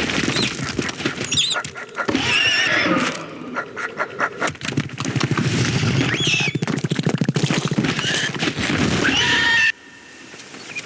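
Animated-film sound effects of a bird attack: a large bird's shrill, wavering screeches over a fast fluttering, scuffling clatter. The effects cut off abruptly near the end.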